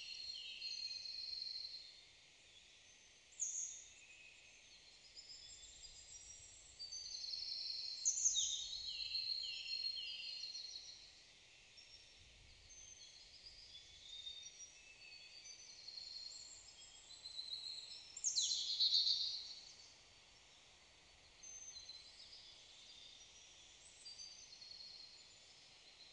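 Several songbirds singing in woodland, overlapping high chirps, trills and quick down-slurred phrases with short pauses between. The song is loudest near the start, about 8 seconds in and about 18 seconds in.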